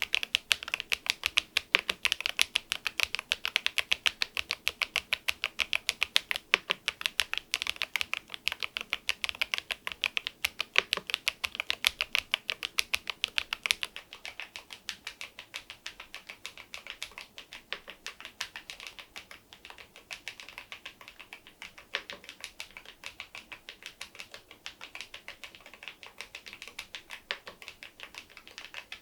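Rapid, continuous typing on a KEYSME AIM04 HE aluminium keyboard with magnetic (Hall effect) switches, fitted with swapped keycaps. The keystrokes are louder for about the first half, then go on more softly.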